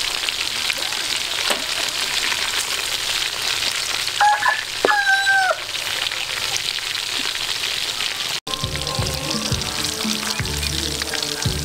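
Hot oil sizzling steadily as chunks of food deep-fry in a steel wok, stirred now and then with a metal skimmer. About halfway through, a brief two-note call sounds over the frying, and after a short dropout about two-thirds of the way in, background music with low notes comes in under the sizzle.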